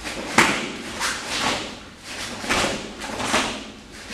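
A cotton karate gi snapping and bare feet stamping on foam mats as down blocks and stepping punches are thrown: several sharp cracks about a second apart, the first the loudest.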